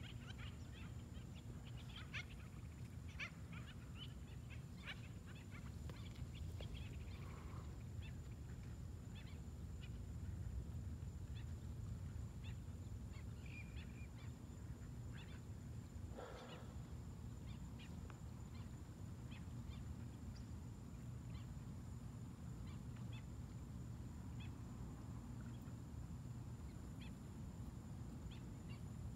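Faint outdoor night ambience: a steady low rumble with scattered short chirps and clicks and a few brief faint calls.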